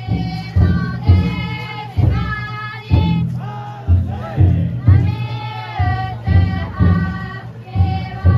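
Festival crowd singing a futon daiko chant together in long held notes, with the float's big taiko drum struck about once a second.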